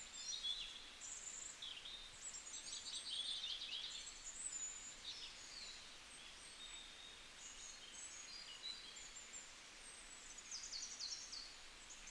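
Small birds chirping and twittering, many short high calls and quick trills overlapping, over a faint steady hiss.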